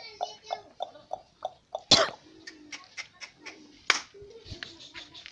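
Sojat goats snorting and giving short low bleats, over a quick run of soft pulses at about three a second at the start. Two sharp knocks, about two seconds apart, are the loudest sounds.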